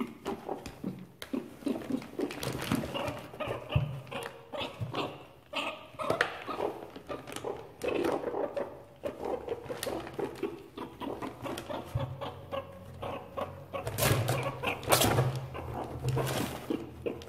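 Meerkats calling and scuffling in a cardboard box: irregular animal calls with a low, steady stretch near the end, over continual scratching and plastic-bag rustling.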